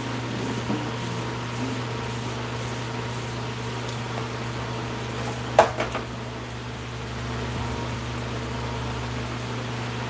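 Steady low hum of a running fan, with one sharp knock about halfway through.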